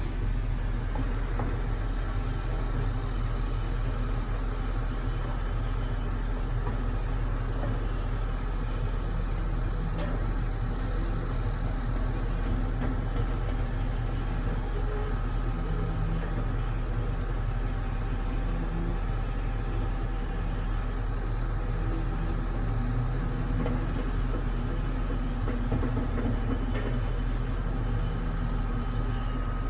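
Concrete pump's engine running steadily at a constant, low drone, with a few faint clicks now and then.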